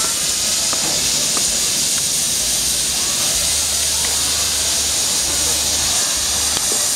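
Steady hiss of steam from a pair of double-headed steam locomotives hauling a passenger train.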